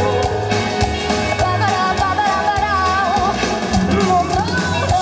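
Live pop band playing a song with a female lead vocal: a sung melody over guitars, keyboard and a steady drum beat, heard through the stage sound system.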